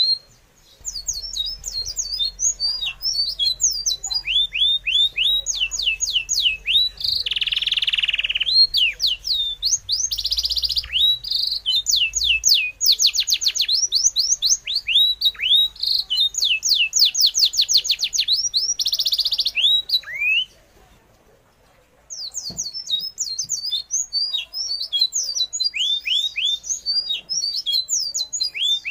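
Forest birds chirping: rapid runs of high, quickly falling notes, with a few short buzzy bursts mixed in. The calling stops briefly about two-thirds of the way through.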